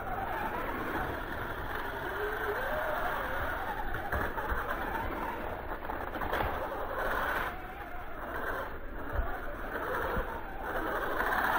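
Electric 1/10-scale RC short course trucks running, their motors whining and gliding up and down in pitch with the throttle over a steady rushing noise.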